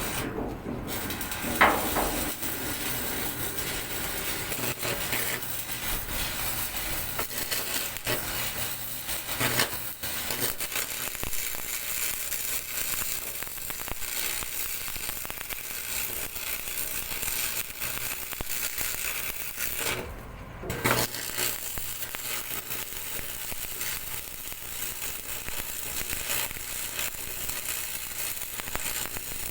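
Electric arc welding crackling and sizzling steadily, with two short breaks in the arc: one just after the start and one about twenty seconds in.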